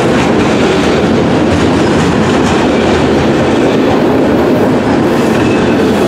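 A freight train of enclosed autorack cars passing close by: a loud, steady noise of steel wheels on rail and the rattling cars.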